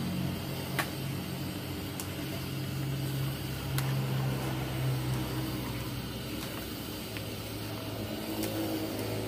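Shrimp, octopus and meat stir-frying in a metal wok: a steady sizzle, with a few sharp clicks of the metal spatula and chopsticks against the pan. A low engine-like hum runs underneath.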